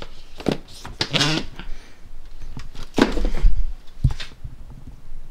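Irregular knocks, clicks and scrapes of computer hardware being handled.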